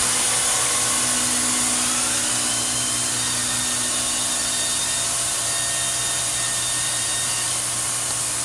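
Fadal VMC4020 vertical machining center running under power: a steady loud hiss with faint whining tones over a low hum. A lower tone fades out about two seconds in.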